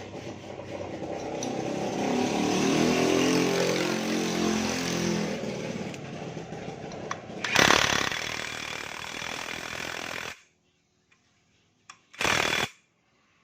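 A motor running loudly and steadily, with a louder noisy burst about eight seconds in; it cuts off suddenly about ten seconds in, and one short loud burst follows near the end.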